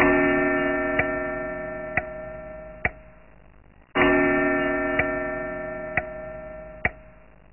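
Pendulum clock ticking about once a second, with two deep chime strikes about four seconds apart, each ringing out and fading slowly.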